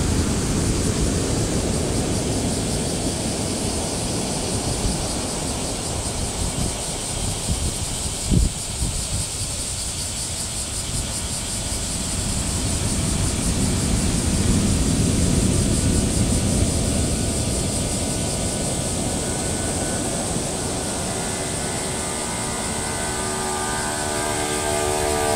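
Typhoon wind and heavy surf, large waves breaking on the beach, with wind buffeting the microphone in an uneven rumble. There is a single sharp knock about 8 seconds in, and a faint steady hum with several pitches comes in near the end.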